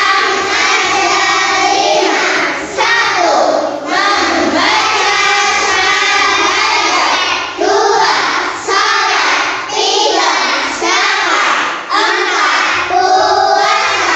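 A class of young children singing a song together in unison, in phrases a second or two long with short breaks between them.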